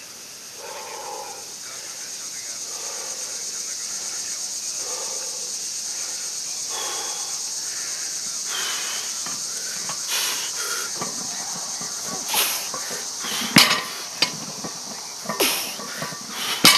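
A man breathing hard while he rests between deadlift reps, over a steady high hiss. Near the end come a few sharp metal clanks as he grips and pulls a 315 lb loaded barbell off the mat, with the loudest clank about three and a half seconds before the end.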